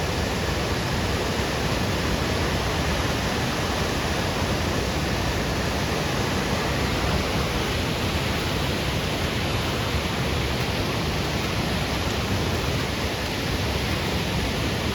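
River rapids and waterfalls at high water rushing over granite-like rock, a steady loud roar of water.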